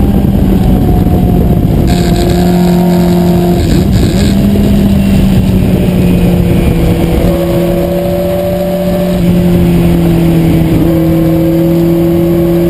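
Lola Mk1 sports-racer's Coventry Climax four-cylinder engine heard onboard from the open cockpit, running at fairly steady revs over wind rush. The pitch shifts a little, easing about eight seconds in before picking up again.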